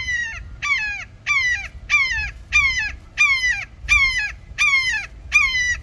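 Hawk calling: a steady series of nine loud, downslurred screams, about one and a half a second, each sliding down in pitch.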